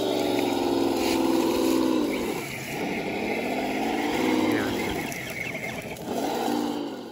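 Electric motor and gear whine of a Roc Hobby Willys jeep RC crawler, rising and falling in pitch several times as the throttle is worked.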